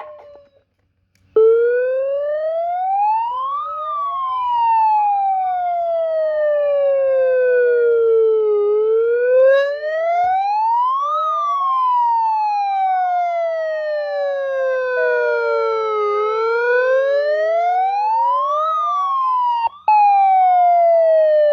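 Homemade Federal Signal 2001-SRN siren sounding the attack signal: a wailing tone that rises over about two and a half seconds and falls over about five, three times over, with a second tone sliding alongside. It starts about a second in and cuts out for an instant near the end.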